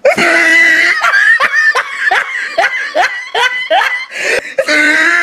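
Loud laughter: a long held note, then a run of short 'ha-ha' bursts about three a second, falling in pitch, and another held note near the end.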